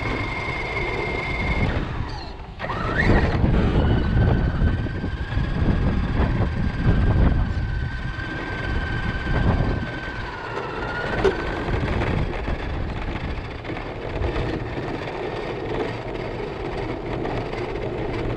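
Remote-control car running on a street: a steady high motor whine over a loud rough rumble of small tyres on pavement. The whine drops out about two seconds in, then rises again as the car speeds up, holds steady, and fades near the middle, leaving the rumble.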